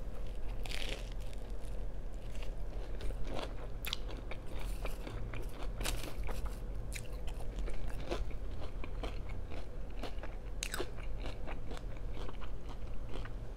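A person biting and chewing crunchy food close to the microphone, with many short crisp crunches throughout.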